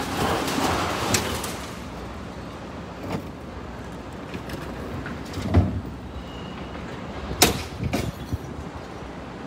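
Junk being unloaded from a box truck: scattered knocks and thuds as items are handled and dropped. There is a heavy low thud about five and a half seconds in, and a sharp bang, the loudest, about seven and a half seconds in.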